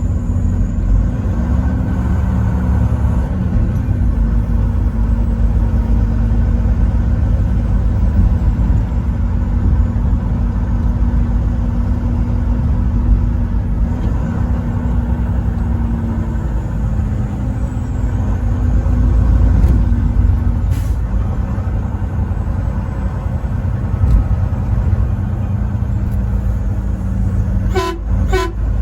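Semi-truck driving on the highway, its engine and road noise a steady low drone, with a truck air horn held in long blasts through most of the first twenty seconds. There is a click about twenty-one seconds in and a brief sharp sound near the end.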